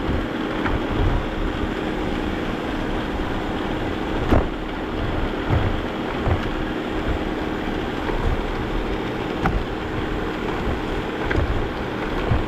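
Vacuum cleaner running steadily with a constant hum, its low rumble rising and falling as it is pushed over the floor, with a few sharp knocks, the loudest about four seconds in.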